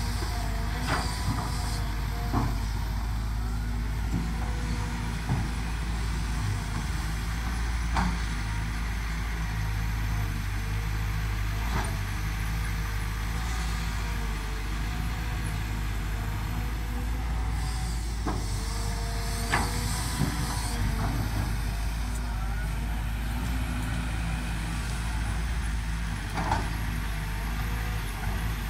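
Kobelco SK200 hydraulic excavator at work: its diesel engine runs steadily under load as the boom and bucket dig and swing. Sharp knocks come every few seconds, and there is a spell of hissing a little over halfway through.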